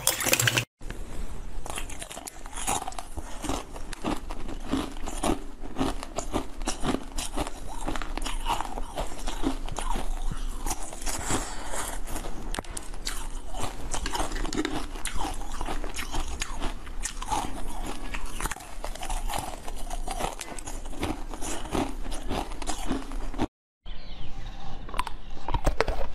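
Close-miked biting, crunching and chewing of hard frozen ice treats: a dense, irregular run of crackling bites throughout, broken by two short silent gaps, one under a second in and one near the end.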